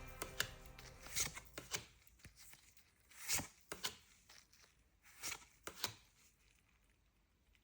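Hands handling the packaging of a Pokémon card Elite Trainer Box: scattered short rustles, crinkles and clicks, faint and irregular.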